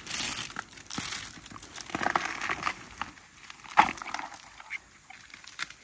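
Irregular rustling and crackling from a fresh moso bamboo shoot's husk being stripped by hand and a plastic bag being handled, with a sharp snap a little before four seconds in.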